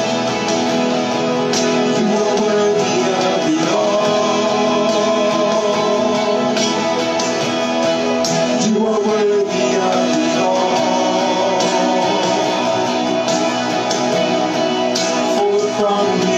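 Live worship band music: guitar over sustained chords, with singing at times.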